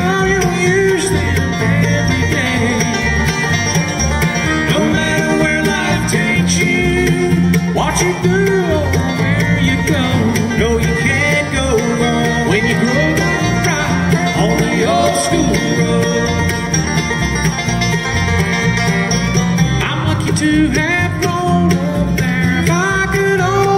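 Bluegrass band playing live: mandolin, guitars, banjo and electric bass together, a steady fast picking groove.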